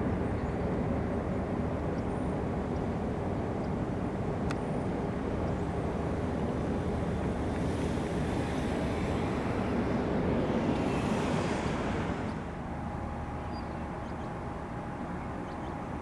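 Steady turbine noise from a parked Sikorsky S-92A helicopter, a low rumble with a hiss that swells and fades between about eight and twelve seconds in. The noise then drops a little, and a steady whine runs on under it.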